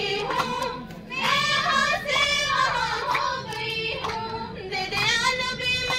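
Girls' voices singing a qawwali, with scattered hand claps.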